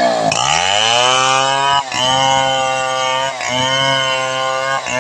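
Large two-stroke chainsaw, a Stihl 070, ripping lengthwise along a log: the engine climbs quickly to full throttle, then runs steadily under load, dipping briefly three times.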